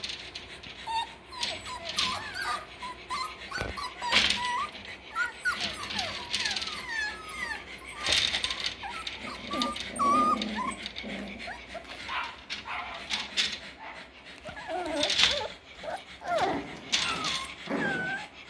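Six-week-old Parson Russell and Russell Terrier puppies playing, with many short high-pitched yips and whimpers and scattered sharp clicks and scuffles.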